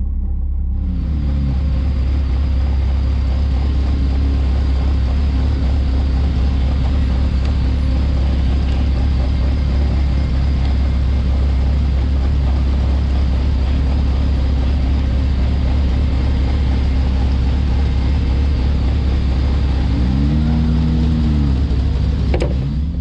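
Caterham 620R's supercharged four-cylinder engine running at low revs as the open car rolls slowly, with a deep steady rumble. The revs rise and fall briefly about a second in and again twice near the end.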